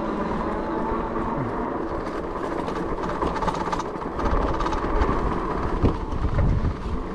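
Dirwin Pioneer fat-tire electric bike rolling over a rough dirt trail: a steady clattering rumble of its 26 x 4-inch Kenda tires and rattling bike parts over the bumps. The deep rumble swells from about four seconds in to six and a half seconds in.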